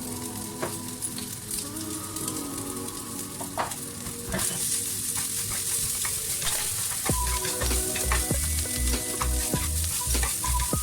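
Fried rice sizzling in a hot pan while being stirred, with sharp clicks of the utensil against the pan. The sizzle grows louder about four seconds in.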